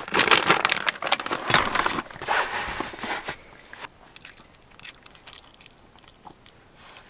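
A small dog crunching and chewing a hard chew treat, the crunching dying away about three seconds in as it finishes the treat.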